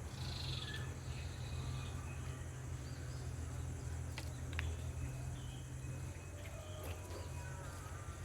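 Outdoor ambience of steadily chirring insects, with scattered faint bird chirps and a couple of small clicks, over a low steady rumble.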